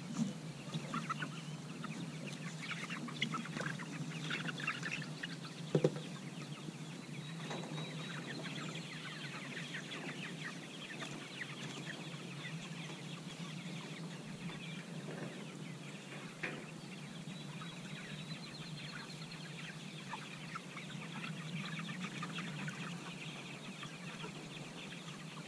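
A large flock of five-week-old pasture-raised broiler chickens clucking and peeping in a steady, busy chatter. A single sharp knock stands out about six seconds in.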